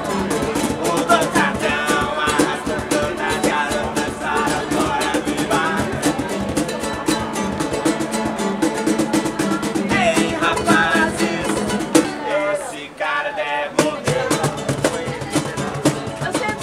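Live acoustic band playing an upbeat song: a strummed ukulele with percussion and singing. The low end drops out briefly about twelve seconds in, then comes back with a hit.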